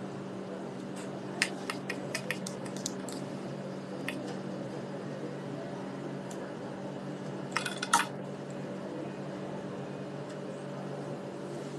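Light clicks and taps of hands working equipment: a quick run of about eight clicks a couple of seconds in, one more around four seconds, and a short tight cluster near eight seconds. A steady low hum lies under it all.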